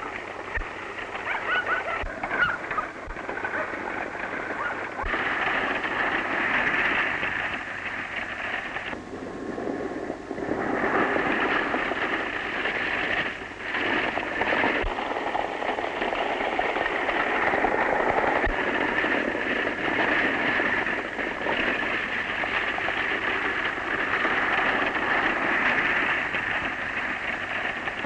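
Horse-drawn wagon at speed: a steady rattling clatter of wheels and running hooves, whose sound shifts abruptly about five seconds in and again around ten seconds in.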